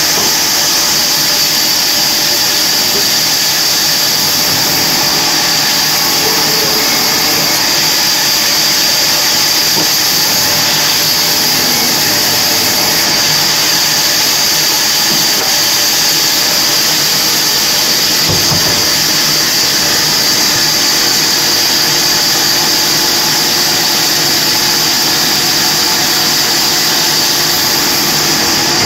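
Large industrial band saw running steadily as logs are fed through its blade, a loud unbroken machine noise with a strong high hiss. A brief low knock about eighteen seconds in.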